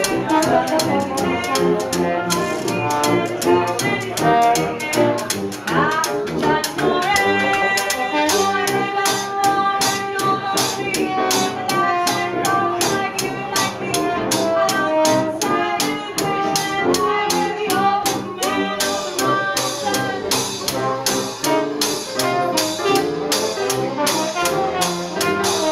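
Small jazz band playing live: trumpet carrying the melody over tuba bass and upright piano, with a washboard and cymbal keeping a steady beat.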